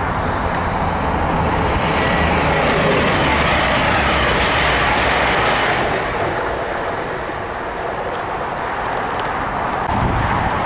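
East Midlands Trains Class 222 Meridian diesel multiple unit passing through at speed: engine drone under a loud rush of wheels and air that peaks midway and fades after about six seconds. Near the end, a Class 319 electric multiple unit approaching along the platform.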